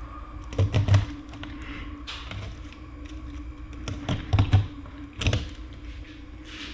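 Knife and bluegill knocking and tapping on a wooden cutting board during filleting: a short cluster of sharp knocks about a second in, another a little after four seconds and a single knock near five seconds, with quieter scraping taps between.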